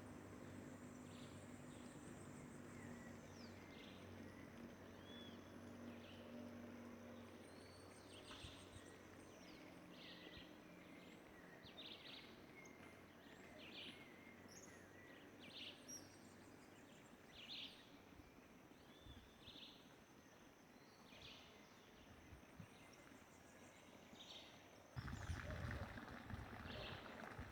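Birds calling faintly outdoors: short high calls repeated every second or two, with fainter thin chirps above them. A louder low rustling noise comes in near the end.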